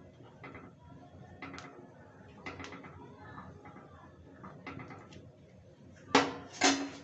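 Metal ladle scraping and knocking against a metal kadai while stirring thick dal, about one clink a second, each with a short ringing tone. Near the end come two loud, ringing clangs half a second apart, as the ladle is knocked against the pan.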